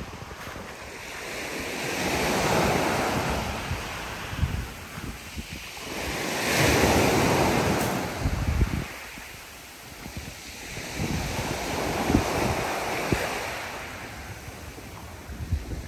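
Small sea waves breaking and washing up a pebble shingle beach, the surf swelling and fading three times. Wind buffets the microphone with low rumbles.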